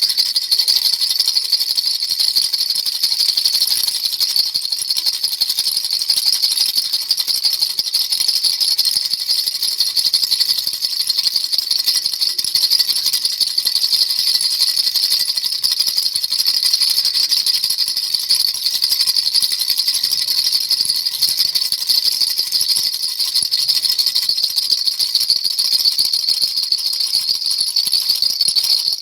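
Baby rattle shaken continuously and fast, a dense, steady, high-pitched rattling with no pauses.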